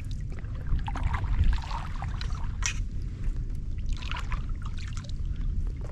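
A boat paddle dipping and pulling through water, splashing and dripping over several strokes as a small boat is turned. A steady low rumble sits underneath.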